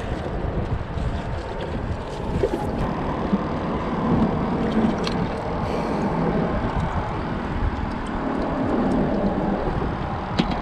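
Steady wind rumbling on the microphone, with a few faint clicks of handled fishing gear.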